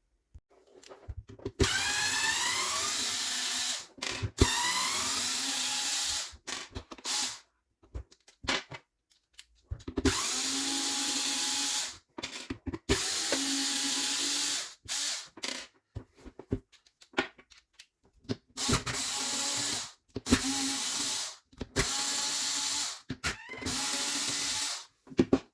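Power drill-driver unscrewing the housing screws of an AEG random orbit sander in several short runs of one to two seconds each. Each run starts with a rising whine, and there are clicks and knocks in the pauses between them.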